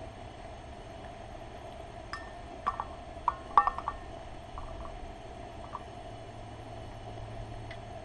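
A quick cluster of light clinks about two to four seconds in, over a steady hum.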